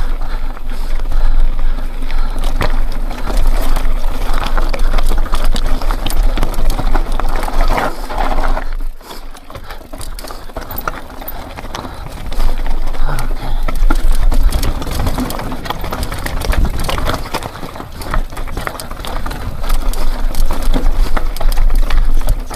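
Mountain bike rolling over a rough dirt and rock trail: tyres crunching and the bike rattling with constant clicks and knocks, under a heavy low rumble of wind on the microphone. It eases briefly about nine seconds in.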